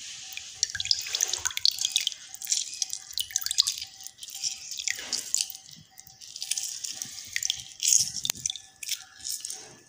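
Half a lemon squeezed by hand over a steel bowl of strained vegetable juice: lemon juice dripping and splashing irregularly into the liquid.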